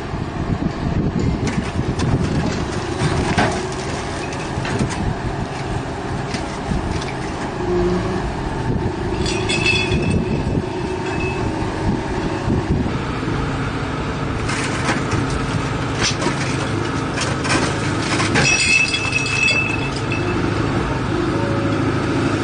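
Excavator engine running steadily while a hydraulic pile breaker works, with scattered knocks and cracks and two brief high squeals, about ten seconds in and again near the end.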